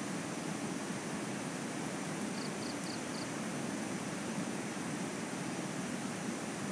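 A steady rushing noise with no rise or fall, and about two and a half seconds in, four short high chirps in quick, even succession.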